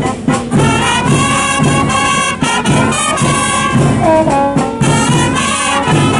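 Military marching band playing a march: a brass melody over a steady drum beat.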